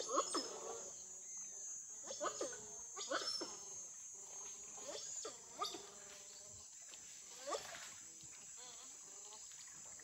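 Giant otters calling: clusters of short wavering whines and squeals every second or two, thinning out after about six seconds, with one last call about seven and a half seconds in. A steady high insect buzz runs underneath.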